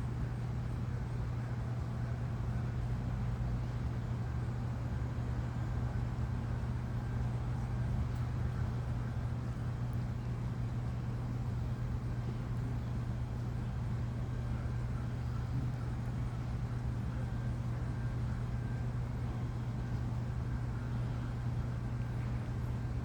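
Steady low mechanical hum, unchanging throughout, with a faint thin whine above it.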